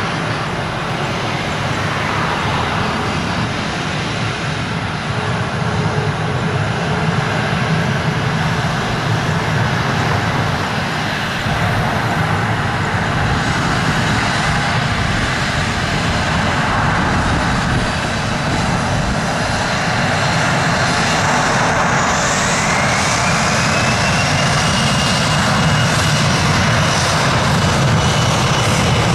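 Boeing 737's twin CFM56 turbofan engines running loud on the runway and growing slowly louder. About two-thirds of the way in, a whine rises in pitch as the engines spool up to take-off thrust, then holds steady as the jet begins its take-off roll.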